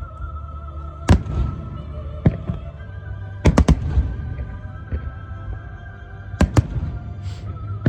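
Fireworks bursting in sharp bangs, one at a time and then in quick clusters of two and three, over music with long held notes.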